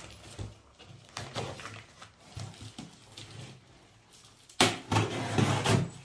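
A taped cardboard box being opened by hand: faint scraping and rustling of cardboard, then a louder ripping of packing tape and cardboard about four and a half seconds in, lasting about a second.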